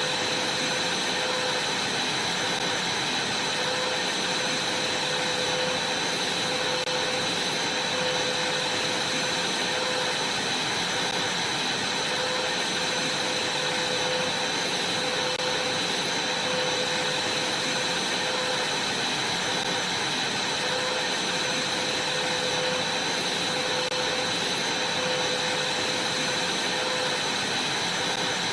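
Vacuum cleaner running steadily as it is worked over a trampoline mat: an even rushing noise with a constant high whine from the motor.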